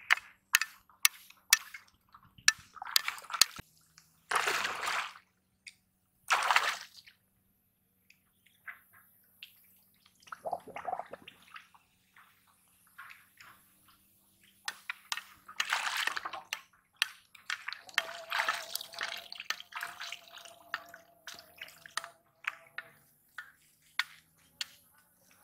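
Water splashing and sloshing in short separate bursts as a man wades through a shallow, weed-covered pond and reaches down into the water. A quick run of sharp clicks opens it.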